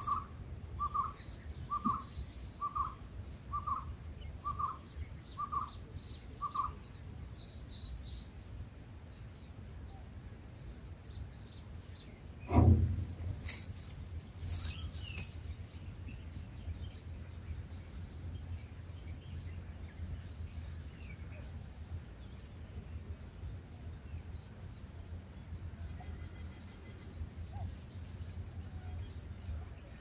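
Birds chirping with many short, high notes, with a lower single note repeated about once a second for the first several seconds. About twelve seconds in there is one loud thump, followed by a steady low hum.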